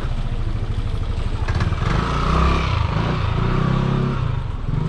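A motorcycle engine running close by, swelling in loudness about two seconds in as it passes.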